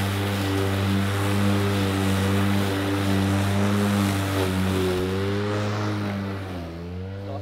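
EGO 56V Select Cut cordless mower running, its motor and blades making a steady hum with a whine over the noise of grass being cut at a low cutting height. The pitch sags a little about two thirds of the way through and drops more deeply near the end as the motor labours under the load, then picks back up as the sound grows quieter.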